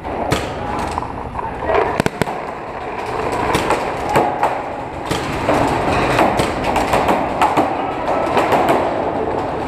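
Paintball markers firing in rapid, irregular volleys, many sharp pops in quick succession, echoing in underground cave tunnels.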